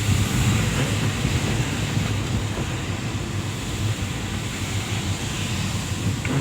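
Steady low rumble and hiss of strong storm wind buffeting the microphone.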